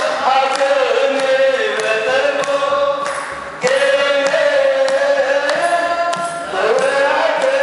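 Orthodox Tewahedo church congregation singing a chant together, with steady strokes of a kebero hand drum and hand clapping keeping the beat. The singing sags about halfway through, then comes back strongly on a new line.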